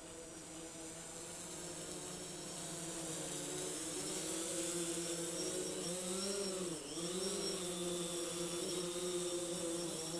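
DJI Phantom 3 Standard quadcopter's propellers buzzing in flight. The hum grows louder over the first few seconds, and its pitch dips and recovers quickly about two-thirds of the way through as the motors change speed.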